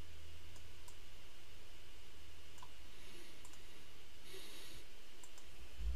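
Computer mouse clicking a handful of times, scattered and unhurried, as Bezier points are placed and adjusted, over a steady low electrical hum. A short hiss comes about four seconds in and a soft low thump near the end.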